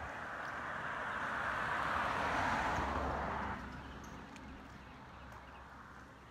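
Passing road traffic: a hiss that swells for about three seconds and cuts off suddenly, leaving a faint low rumble that fades away.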